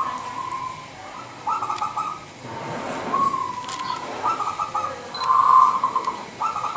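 Zebra dove (perkutut) singing its cooing song. Each phrase is a quick run of stuttering notes that runs into a held coo, repeated about five times.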